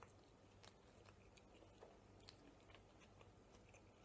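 Faint chewing of a mouthful of pizza, heard as soft scattered clicks over a low steady hum.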